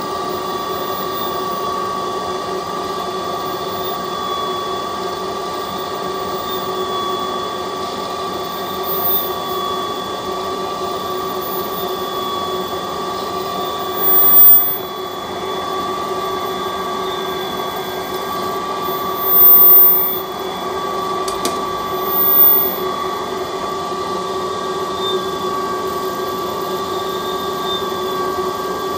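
CNC lathe running steadily, its spindle spinning a metal bar while the tool turns grooves into it, with a constant whine holding two steady tones. Three brief louder surges come about halfway through.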